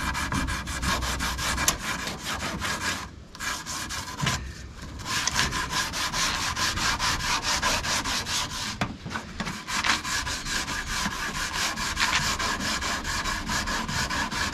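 Sandpaper, 220 grit, rubbed lightly by hand along the varnished edge of a mahogany table: quick back-and-forth strokes, with a few brief pauses.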